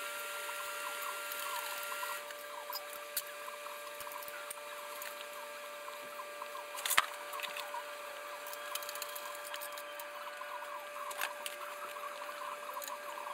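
Workshop handling noise: scattered small clicks and short squeaks over a steady electrical hum, with one sharp knock about seven seconds in.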